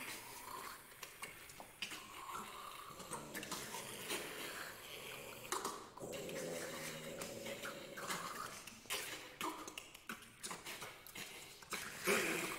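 Six singers performing a contemporary vocal piece made of noisy breath and mouth sounds in short, uneven spurts, with a short held note about halfway through.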